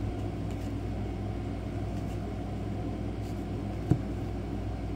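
Steady low background hum, with faint taps from trading cards being handled and one soft thump about four seconds in.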